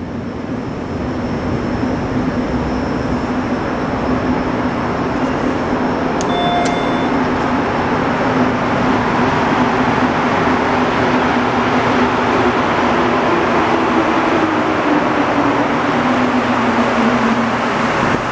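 Rubber-tyred Montreal Metro train running through the station, its rumble and rush building over the first several seconds and then holding loud, with a motor hum that falls in pitch near the end as the train slows. A brief beep sounds about six seconds in.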